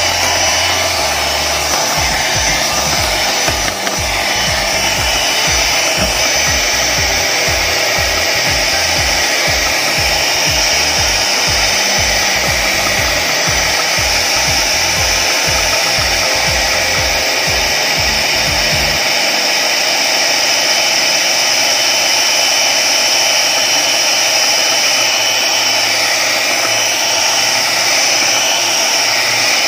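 Electric hand mixer running steadily, its twin beaters whipping cream in a bowl. Under the motor's steady whine there is a low pulsing that stops about two-thirds of the way through.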